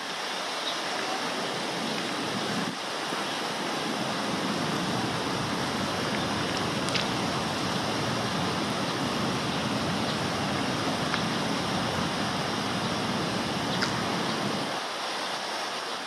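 Steady, even rushing noise, with a few faint, very short high-pitched sounds about 7 and 14 seconds in.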